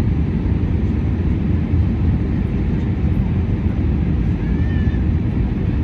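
Steady low rumble of an Airbus A340 cabin on approach: engine and airflow noise heard from inside the passenger cabin.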